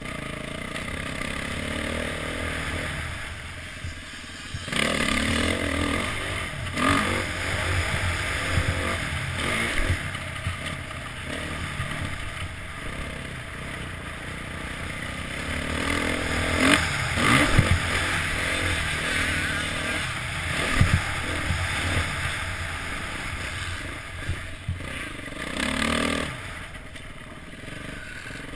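Motocross bike engine revving up and down as it is ridden hard around a track, swelling louder and falling back several times, with wind noise on the microphone and knocks from the bumps.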